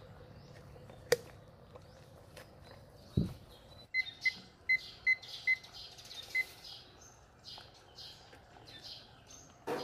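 A digital kitchen timer beeps about six times in short single beeps as its buttons are pressed to set the minutes and start the countdown. Before that, a sharp click as a plastic lid snaps onto the hot pot, then a dull thump. Birds chirp in the background.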